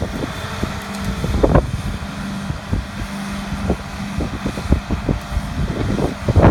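Ditch Witch SK1550 skid steer's engine running steadily with a constant hum, under a run of irregular cracks and thumps. The louder ones come about a second and a half in and near the end.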